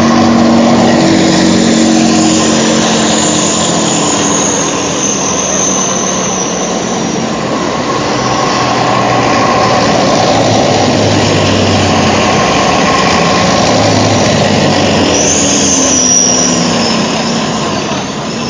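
Column of T-72 tanks and military trucks driving past with engines running, a loud continuous mechanical rumble. A high whine rises and fades twice, once a few seconds in and again near the end.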